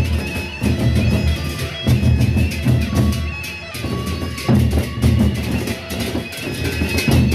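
Gendang beleq ensemble playing: large Sasak barrel drums beaten in clusters of heavy strokes in a driving rhythm, with thin pitched tones and sharp clashing strokes above them.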